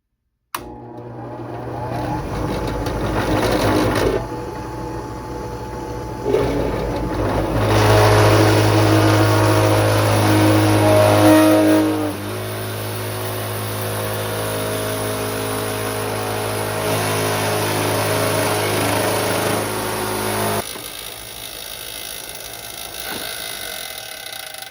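An older Sears Craftsman 8-inch drill press switches on about half a second in and runs with a steady hum while its bit slowly cuts into thin, flexing sheet metal. A wavering whine from the cut grows loudest in the middle, drops about halfway through, and eases off further near the end.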